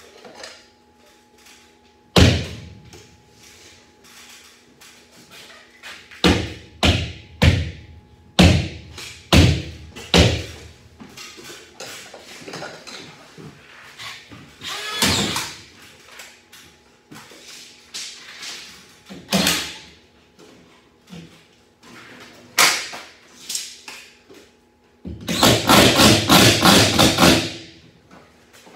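Collated drywall screw gun driving screws through ceiling drywall into the joists: a string of short, sharp bursts, about six in quick succession, then a longer rapid rattling run near the end.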